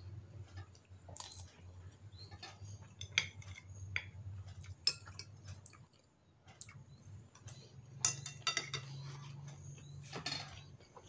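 Eating at the table: chopsticks and cutlery clicking against a bowl and plate every second or so, with a few longer scraping or slurping noises near the end. A low steady hum runs underneath.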